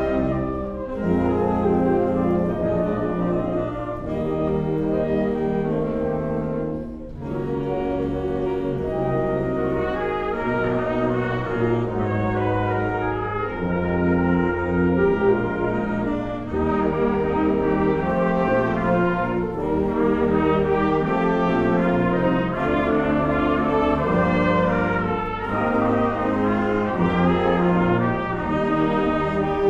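Symphonic band of woodwinds and brass playing a piece live, moving through held chords, with the brass standing out. The sound drops back briefly about seven seconds in.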